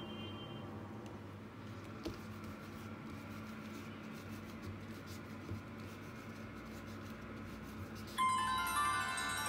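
Quiet background music with faint held notes; near the end a cluster of bright, high notes comes in, louder than the rest.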